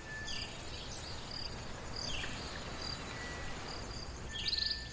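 Countryside ambience of insects and birds: short high chirps and quick falling trills every second or two over a steady low background hiss.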